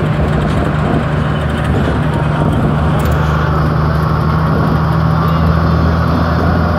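Bus engine running steadily under way, with road noise, heard from inside the cabin.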